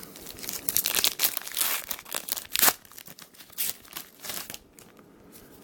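Trading-card pack wrapper being crinkled and torn open by hand, a dense crackling for about three seconds with one sharp snap near the middle, then a few scattered small crinkles and clicks as it settles.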